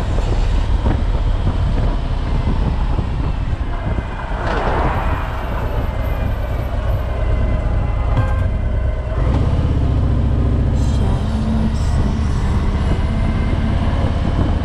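Harley-Davidson Tri Glide Ultra trike's V-twin engine running on the road, mixed with wind and road noise, with a brief swell of noise about four and a half seconds in. About nine seconds in, the engine note turns into a steadier, deeper drone as the trike pulls away from a junction.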